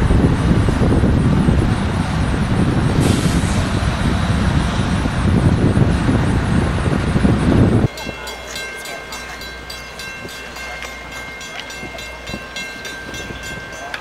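Wind buffeting the microphone, a loud, gusting low rumble. About eight seconds in it stops abruptly, leaving a much quieter outdoor background with a few steady high tones and faint rapid ticking.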